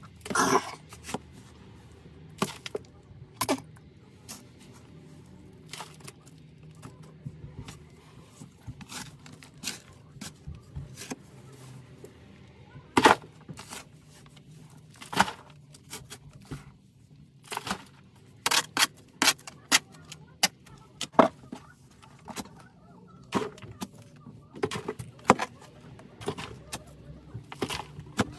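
Short D-handled spade digging into packed soil, with irregular sharp scrapes and strikes of the blade every second or two over a faint low steady hum.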